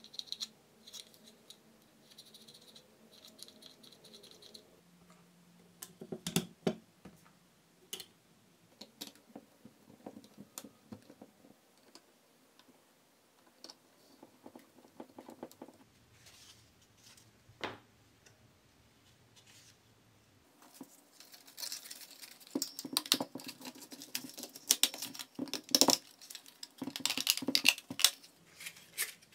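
Hard plastic parts of a 3D-printed belt sander being handled and fitted together: scattered clicks, taps and small rattles, growing busier and louder with scraping over the last several seconds.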